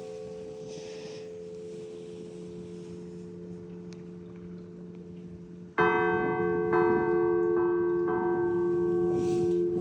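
Church bell ringing: a lingering hum slowly fades, then the bell is struck loudly about six seconds in and three more times over the next couple of seconds, each stroke ringing on into the next.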